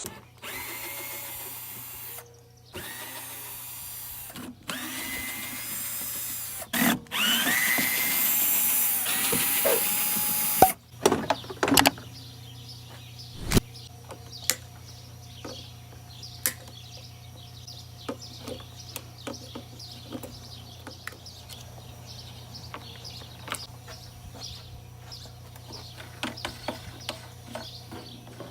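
A power drill running in several bursts, its pitch rising and falling, as the electric push mower is taken apart. It is followed by a long stretch of light clicks and knocks as parts are handled.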